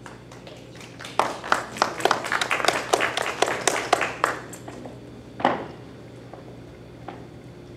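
A small audience applauding, its separate claps distinct, for about three seconds, then one more short sharp sound a little later.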